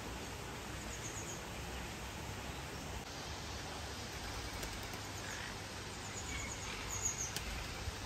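Outdoor ambience: a steady hiss with small birds chirping in short, high runs about a second in and again near the end, and a single sharp click shortly before the end.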